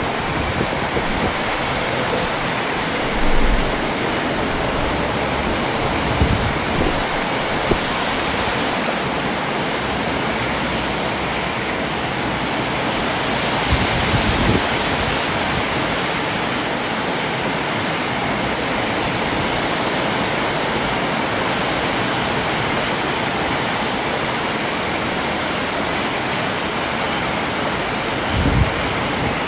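Steady heavy rain, a dense even hiss that does not let up, with a few brief low thumps.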